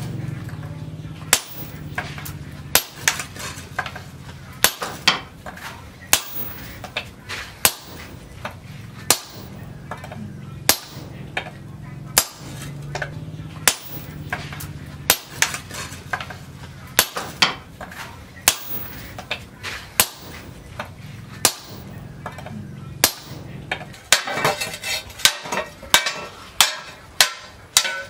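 Hand hammer striking a hot steel disc-plough blade held in tongs on a steel post anvil. The sharp metallic blows come about once a second and speed up to two or three a second near the end, over a low steady hum.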